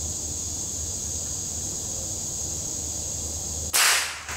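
A single .22 rifle shot at a squirrel, sharp and sudden, near the end, dying away within about half a second. A steady high drone of insects runs underneath.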